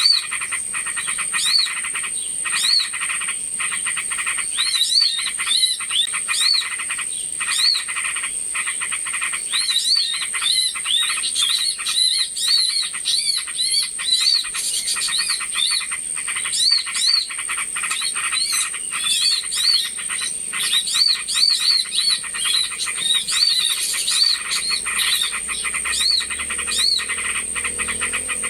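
Bird-lure recording of small birds calling at once: a dense chorus of short, quick chirps over rapid clicking chatter, with a steady high-pitched whine underneath.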